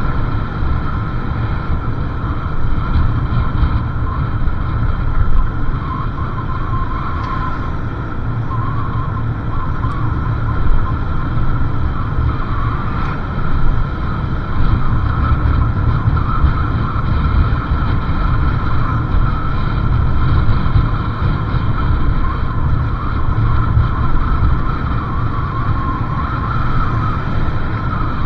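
Motorcycle running steadily at riding speed, with wind rushing over the microphone.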